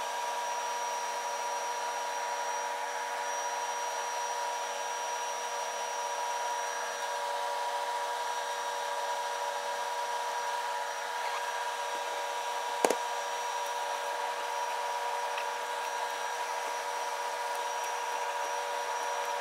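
A steady mechanical hum with a constant whine in it, from a running motor-driven machine, with one sharp click about thirteen seconds in.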